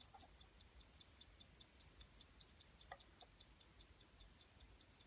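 Mechanical movement of a Waltham Riverside pocket watch ticking faintly and evenly, about five sharp, high ticks a second.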